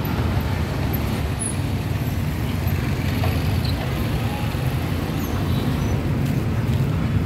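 Steady low rumble of street background noise, typical of traffic passing a market, with faint voices mixed in.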